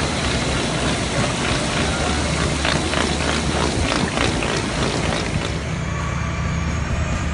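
Tulip bulb washing and grading line running: bulbs clattering over the shaking grading sieves with water spraying and running. About five and a half seconds in this gives way to a steadier, lower tractor engine running.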